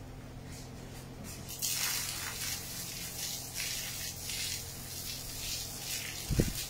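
Garden hose spraying water with an uneven hiss that starts about a second and a half in, over a low steady hum. A low thump comes near the end.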